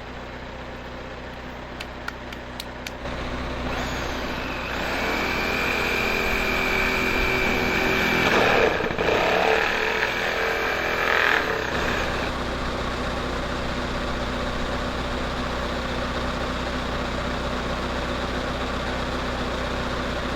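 An engine running steadily, with a louder working stretch from about four to twelve seconds in that carries a high whine.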